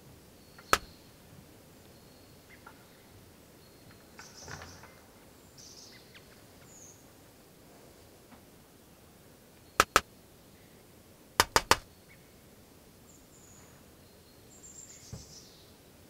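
Great tit giving short, high calls that fall in pitch, scattered through the quiet. The loudest sounds are sharp taps: one near the start, a pair about ten seconds in and three quick ones soon after.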